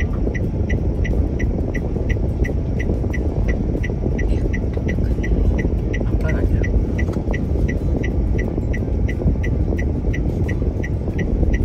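Steady low road and engine noise inside a moving car's cabin, under background music with a light, even ticking beat about three times a second.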